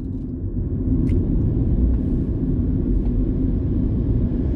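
Car engine and tyre noise heard from inside the cabin while driving, a steady low drone.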